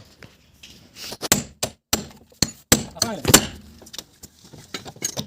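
A run of about a dozen irregular sharp knocks and clanks, loudest and most closely bunched in the middle, like tools or metal parts being handled and struck in a body shop.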